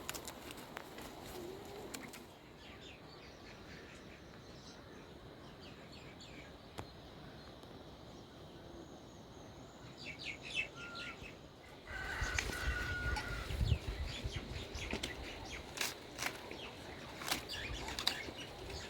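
Birds chirping over quiet outdoor ambience; about twelve seconds in, the sound grows louder with a low rumbling noise and a run of clicks and knocks.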